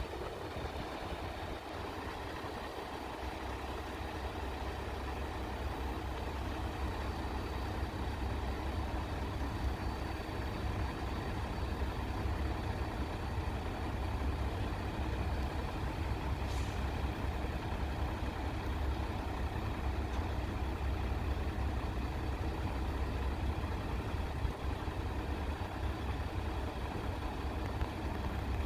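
Heavy diesel engine of a mobile crane running steadily, a low rumble that grows a little louder over the stretch.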